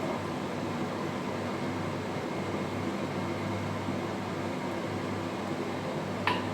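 Steady background room noise: a low hum with an even hiss, and one short click near the end.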